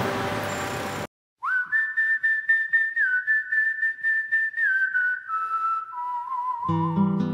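About a second of city street noise, traffic and voices, cuts off. After a brief gap a whistled melody starts over a light ticking beat, and acoustic guitar chords join near the end, opening a pop song.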